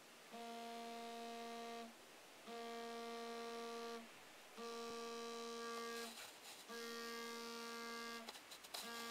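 Smartphone alarm buzzing in pulses: a steady buzz about a second and a half long, repeating every two seconds or so. A few clicks fall between the later pulses.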